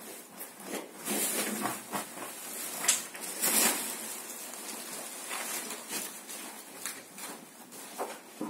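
Rustling and a few light knocks of flowers being handled and set into an arrangement, loudest between about one and four seconds in.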